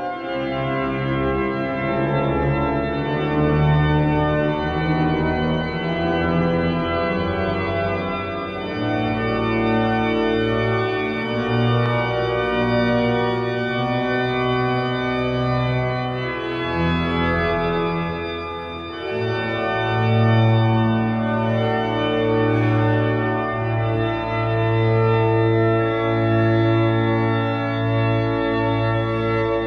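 Large church pipe organ playing a chorale fantasia in full sustained chords over a moving bass line. A deep bass note enters about two-thirds of the way through and is held to the end.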